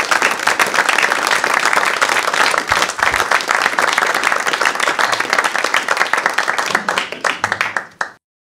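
Audience applauding steadily, thinning to scattered claps near the end before cutting off abruptly.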